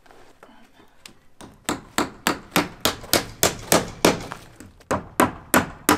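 Hammer driving nails into wooden siding boards: a steady run of sharp, ringing blows, about three a second, starting about a second and a half in.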